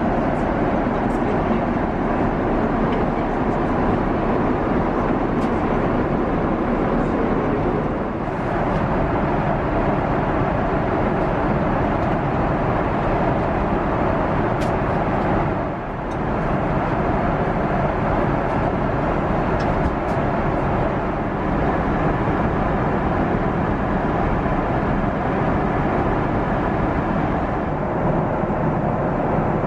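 Boeing 777-300ER cabin noise in cruise flight: a steady rush of airflow and engine noise heard from a seat inside the cabin, dipping briefly about eight and sixteen seconds in.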